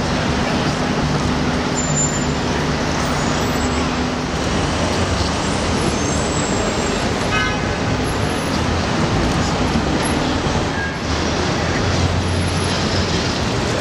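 Busy city street traffic: a steady low rumble of engines under a constant wash of street noise.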